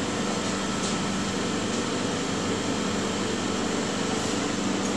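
Steady hum and whir of fan-driven kitchen machinery, with a constant low drone under an even hiss.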